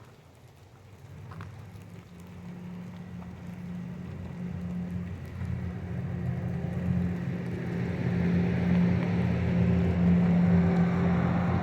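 A motor vehicle's engine, a steady low hum growing steadily louder over several seconds.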